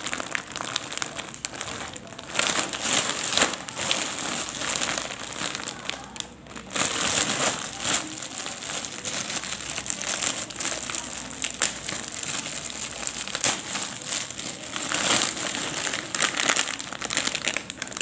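Crinkling and rustling of a clear plastic wrapper and the foil snack packets inside as hands handle and pull at them, in irregular bursts with many sharp crackles.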